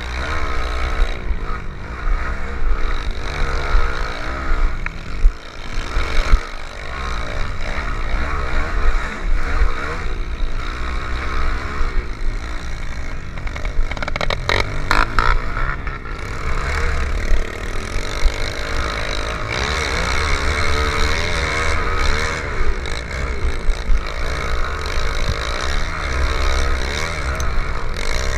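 Small four-stroke pit bike engines revving up and down as the throttle opens and closes through the turns, with heavy wind rumble on the helmet-mounted microphone. A brief clatter of knocks about halfway through.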